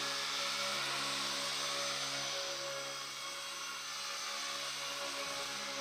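Align T-Rex 250 electric RC helicopter in flight: the steady whine of its electric motor and spinning rotor blades, the pitch dipping briefly near the end.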